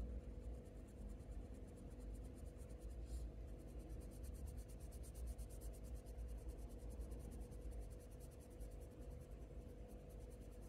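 Faber-Castell Polychromos colour pencil rubbing on hot-press watercolour paper in rapid short shading strokes, a faint scratching.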